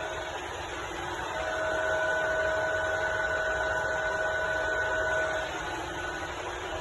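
TOS Olomouc FGU 32 universal milling machine running under power: a steady mechanical hum with a whine that comes up louder about one and a half seconds in and drops back about a second before the end.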